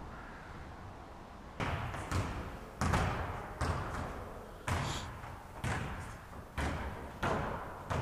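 A series of dull thuds, roughly one a second, each trailing off in the echo of a large sports hall; they begin about one and a half seconds in.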